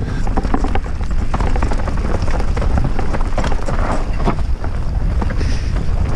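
Orbea Rallon R5 29er mountain bike riding fast over rough trail: tyres rumbling over dirt and rock while the bike clatters in quick, irregular knocks, over a steady low rumble.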